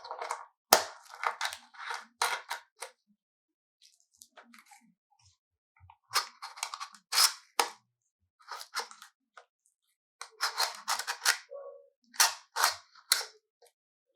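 Plastic and metal clicks and rattles from handling a gooseneck phone holder and its clamp, in three bursts of a few seconds each. There is a sharp snap about a second in and another near the middle.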